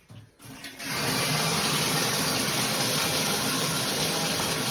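Water turned on through a new high-pressure shower head: after a short quiet start the spray comes on about a second in and then runs steadily and forcefully.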